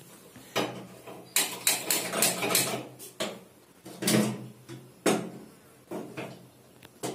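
Aluminium kettle and its lid clanking against a gas stove's steel top: a run of irregular metal knocks and clatters, over a faint low steady hum.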